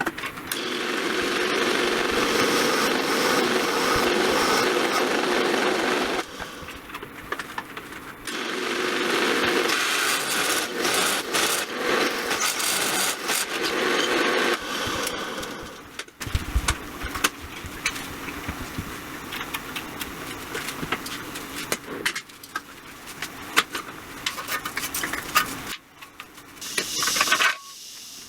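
A power tool running in two stretches of about six seconds each, with crackling clicks through them, followed by quieter intermittent clicking and knocking and a short loud burst near the end.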